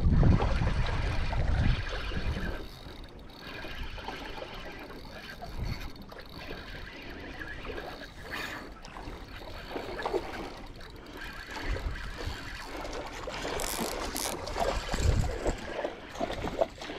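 A spinning fishing reel being wound in with water sloshing as a hooked fish is brought in.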